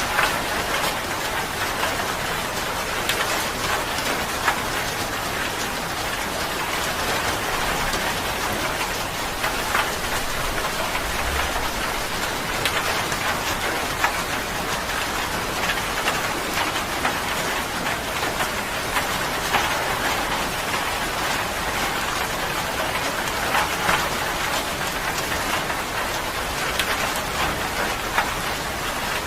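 Steady rain falling on a surface, an even hiss with many separate drops pattering and a few louder drop hits here and there.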